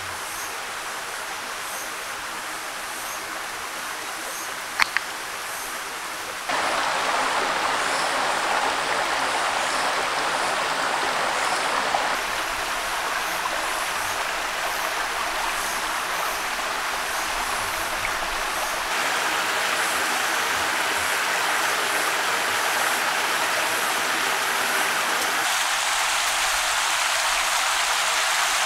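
Running stream water, a steady rushing hiss whose loudness jumps at several cuts. A brief sharp double click about five seconds in.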